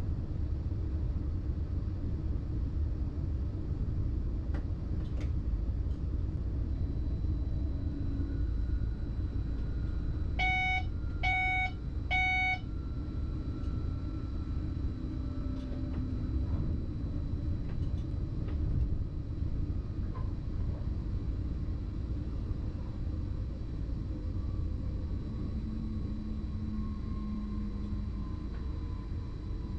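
Steady low rumble of a BLS RABe 515 'MUTZ' double-deck electric multiple unit under way, heard from inside the driver's cab. Near the middle come three short electronic beeps about a second apart from the cab equipment.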